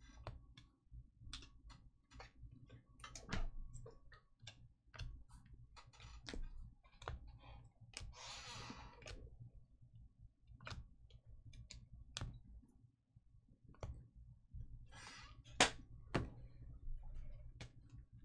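Faint scattered clicks and taps at an irregular pace over a low steady hum, with a short rustle about eight seconds in.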